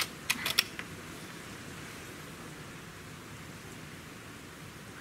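A few sharp clicks in the first second as the bolt of a PCP air rifle is worked to chamber the next pellet between shots. After that, only a low steady background hiss.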